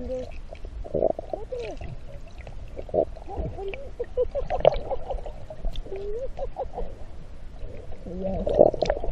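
A person's voice heard muffled and low through the water of a swimming pool by an underwater microphone, with gurgling water and sharp clicks as a golden retriever puppy paddles beside it.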